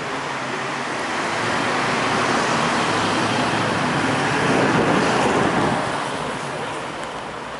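A classic Ford Mustang pulling out and driving past, its engine and tyre noise swelling to a peak a little after halfway and then fading.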